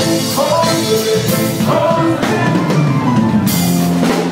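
Live dancehall band music played loud through a concert PA: a drum kit keeps a steady beat under bass and keyboard tones.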